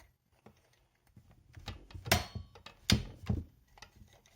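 Clutch cover being worked onto an Echo CS590 chainsaw: a run of sharp clicks and knocks, the loudest about two and three seconds in, as it resists seating.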